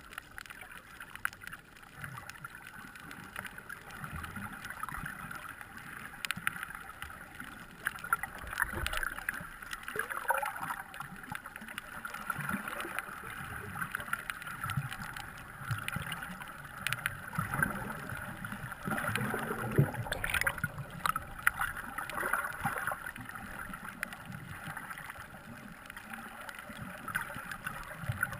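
Muffled underwater sound through a waterproof camera housing: water moving around the camera, with scattered sharp clicks and knocks and a steady hiss-like hum throughout, louder through the middle.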